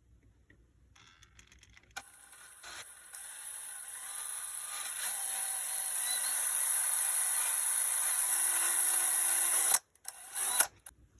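A small electric motor whirring with a strong hiss, building up over a few seconds, holding steady, then cutting off suddenly. A short second burst follows.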